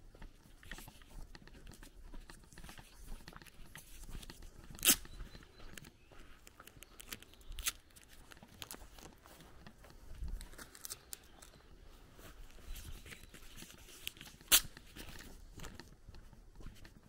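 Footsteps crunching on a dirt road, a run of small uneven crunches and clicks. Two much louder sharp clicks come about five seconds in and again about fifteen seconds in.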